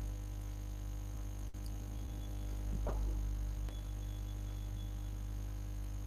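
Steady low hum with faint hiss from an open microphone, with a faint short sound about three seconds in.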